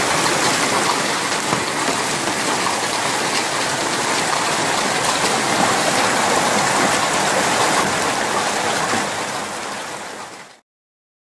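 Heavy hail mixed with rain falling hard on the ground, a dense, even clatter. It fades a little near the end, then cuts off suddenly.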